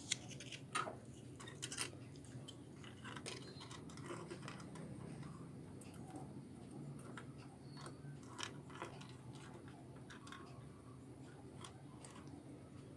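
Faint, scattered clicks and taps as a soldering iron and a desoldering tool work the solder joints of a CRT TV circuit board to free two transistors, over a low steady hum. A few sharper clicks come in the first two seconds.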